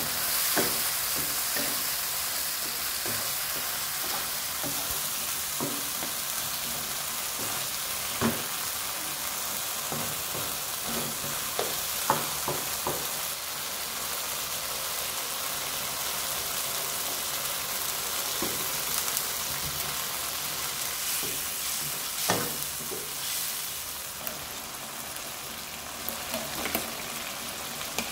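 Tomato and canned salmon sauce sizzling steadily in a nonstick wok, with a wooden spatula stirring and scraping, knocking sharply against the pan now and then.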